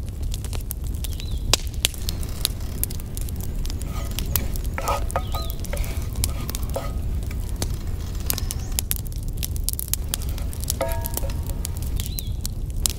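Dried mint sizzling and crackling in hot oil in a cast-iron pan as a wooden spatula stirs it, over a steady low rumble.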